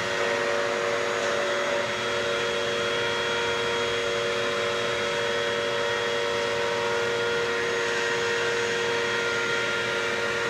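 Upright vacuum cleaner running steadily, its motor giving a constant whine of several fixed tones over the rush of air.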